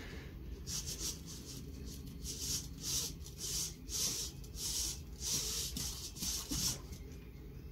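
Hobby servos in the legs of a Spot Micro quadruped robot whirring in short, repeated bursts, about two a second, as they keep adjusting its stance to hold the body level on the tilting board beneath it: the robot self-stabilising from its MPU6050 IMU, still a little jittery.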